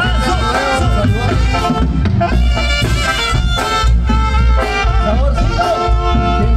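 Tamborazo band playing live: horns holding long notes over a steady tambora bass-drum beat.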